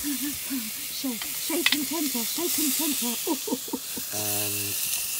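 T-bone steaks sizzling on the hot grill of a Cadac Safari Chef 2 gas barbecue as they are turned over with metal tongs and a spatula, with a few sharp clicks of metal on the grill about one and a half seconds in. A voice murmurs under the sizzle and holds a hummed note about four seconds in.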